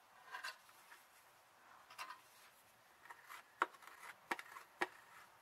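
Faint scraping and tapping of a small hand tool working JB Weld epoxy onto a car's exhaust flex pipe, with three sharper clicks in the second half.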